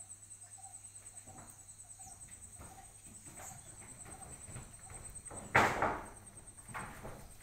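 Insects chirping steadily in a fast high-pitched pulse, with a sudden loud scraping rustle about five and a half seconds in and a smaller one a second later.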